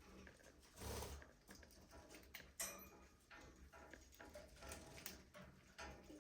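Budgerigars in an aviary, faint: scattered short chirps and small clicks and scratches, with a brief louder rustle about a second in and a sharp click near the middle.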